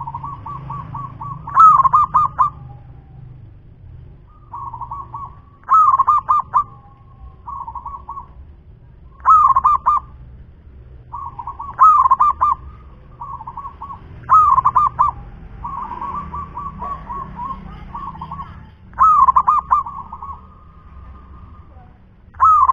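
Zebra dove (perkutut) singing: repeated cooing phrases, each a quick rolling run of soft notes with a few louder accented coos, about every three to four seconds.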